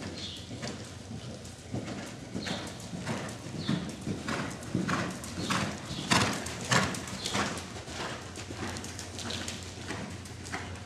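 Hoofbeats of a Hanoverian mare cantering on soft arena sand, falling in a regular stride rhythm.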